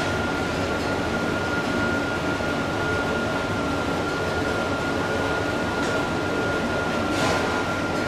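Yamaha Tracer 900's three-cylinder engine idling steadily through a Termignoni carbon slip-on silencer, with a brief swell in the sound about seven seconds in.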